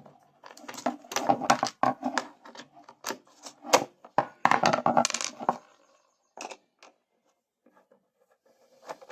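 Sharp clinks and clicks of parts being handled as the breather is slid onto its notches and fitted to a small 63cc generator engine: a quick run of clicks for about five seconds, then a few isolated ones.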